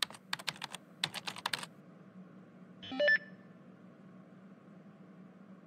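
Computer keyboard typing in two quick bursts of keystrokes, then a short electronic chime about three seconds in, a chat message alert.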